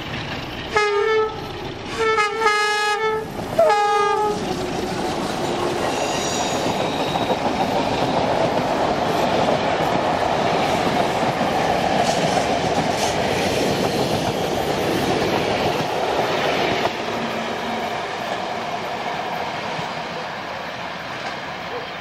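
Electroputere LDE2100 (060-DA) Sulzer-engined diesel locomotive sounding its horn in three blasts, the middle one longest, then passing at full throttle with its passenger carriages rumbling by. The noise drops off suddenly about three-quarters of the way through and fades as the train goes away.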